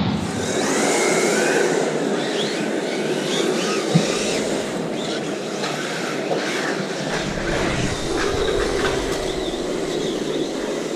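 Scale electric RC cars driving on a wooden floor: a steady scrubbing noise with many short whines rising and falling, and a single sharp click about four seconds in.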